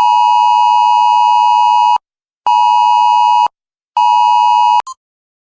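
Loud electronic alert beeps: one steady tone held about two seconds, then two shorter beeps of about a second each, then a short pip near the end.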